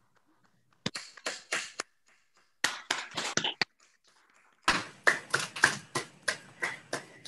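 Hand clapping from a few people, heard through a video call, in short scattered bursts that become a steadier run of claps about halfway through.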